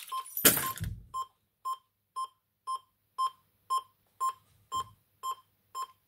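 Logic 6 burglar alarm panel's internal sounder beeping steadily about twice a second: the exit-delay tone while the system sets after a fob has been presented. A short noisy burst comes just before the beeps begin.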